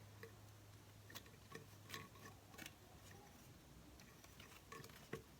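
Near silence with a few faint, scattered clicks and scrapes from a drain-cleaning tool being worked down a sink drain pipe.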